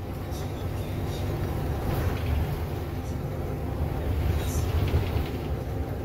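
Steady low engine and road rumble of a city bus in motion, heard from inside the passenger cabin.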